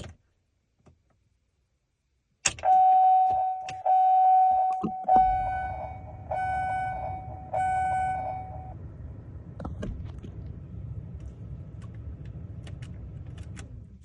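Door chime from an aftermarket SWTNVIN head unit in a 2013 Chevrolet Silverado, played through the radio's small speaker: a click, then five loud dings about a second and a quarter apart, the last two softer. A low steady rumble starts about five seconds in and runs under the rest.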